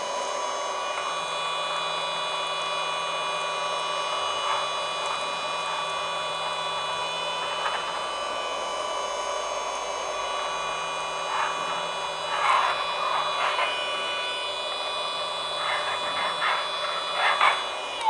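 Mini USB handheld vacuum cleaner's small electric motor running steadily with a whine of several pitches, while dry loose tea leaves crackle and rattle up its crevice nozzle in short bursts, mostly in the middle and toward the end.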